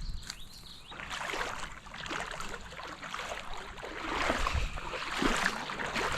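Creek water splashing and sloshing in uneven surges.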